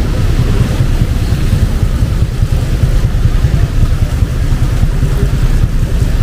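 Rainy city street ambience: a loud, steady low rumble of traffic over an even hiss of rain, with no single event standing out.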